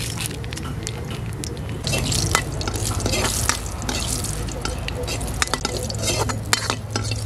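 Cumin seeds and bay leaf sizzling in hot mustard oil in a wok, tempering for a curry, while a metal ladle stirs and scrapes against the pan. The sizzle and scraping get louder about two seconds in.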